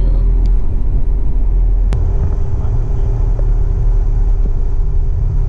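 Car driving at steady speed, its low engine and road rumble heard from inside the cabin, with a faint steady hum. A single sharp click about two seconds in.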